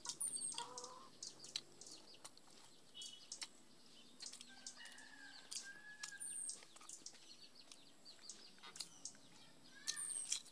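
Chewing and lip-smacking of a man eating rice by hand: a scattered run of small wet clicks. Birds chirp in the background, with a short whistled call about halfway through.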